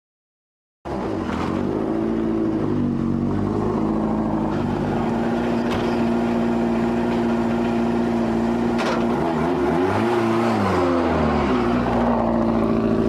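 Subaru Impreza WRC rally car's turbocharged flat-four engine, cutting in suddenly about a second in and running at high revs. It holds a steady note for a few seconds, then the pitch drops and climbs back around ten seconds in.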